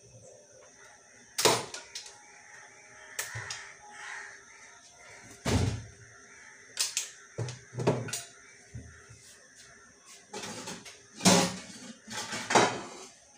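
Irregular knocks and thuds of kitchen work: a knife cutting through pumpkin and pieces set down on the counter, about eight separate strikes. A louder knock near the end comes as an aluminium pot is taken down from a shelf.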